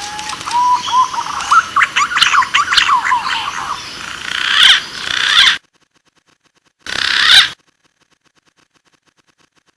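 Green pigeon (punai) song: whistles gliding up and down, then a rapid jumble of sharper notes and rising calls. The recording cuts off abruptly a little past halfway, with one short burst of calling about seven seconds in.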